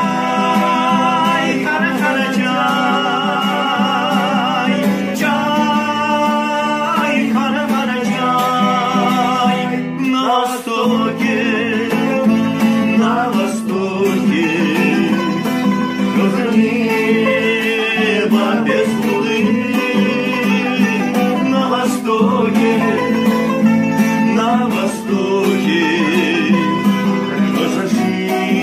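Background music: an instrumental passage of a song, led by plucked guitar with a wavering melodic line over it.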